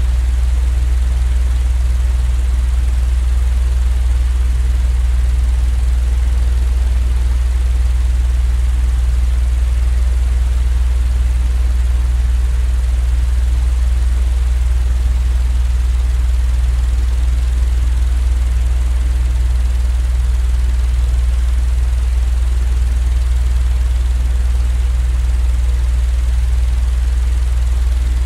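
Steady, unchanging deep rumbling drone, strongest in the low bass, with a faint even hiss above it: a continuous sleep-noise track.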